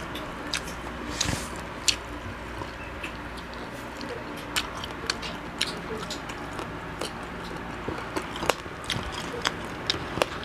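Close-miked chewing of crispy fried field frog, with irregular crunches and mouth clicks.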